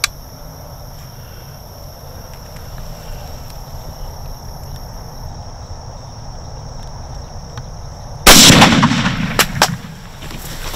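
Insects trilling steadily, then a single 6.5 Creedmoor rifle shot about eight seconds in, very loud, its report rolling away over a second or so. A few sharp clicks follow.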